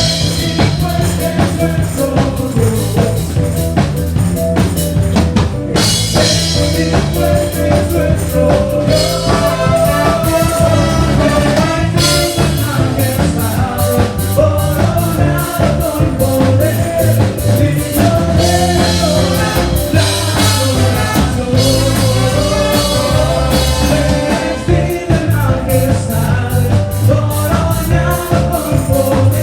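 Band playing rock-style worship music with a drum kit and a singing voice, loud and steady.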